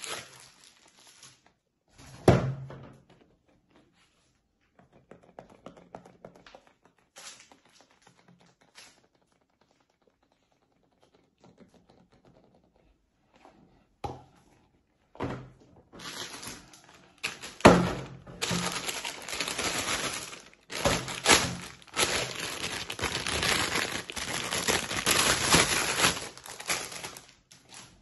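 Clear plastic packaging bags crinkling as they are handled and pulled off rubber dinosaur hand puppets, with a few sharp thunks of toys set down on a table. The crinkling is sparse at first and becomes dense and continuous from about the middle on.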